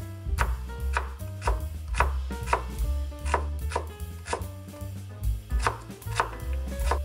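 Chef's knife dicing an onion on a wooden cutting board: the blade knocks on the board in a steady rhythm, about two strokes a second, with a short pause a little past the middle.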